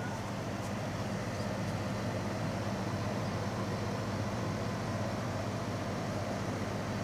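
A steady low mechanical hum, unchanging in level.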